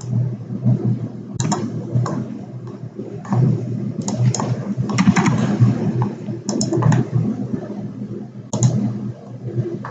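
Computer mouse and keyboard clicking at irregular intervals, sometimes singly and sometimes in quick runs of two or three, over a steady low hum.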